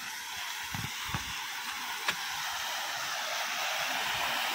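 Small waterfall rushing, a steady hiss of falling water that grows slowly louder, with a few soft thumps and a click in the first two seconds.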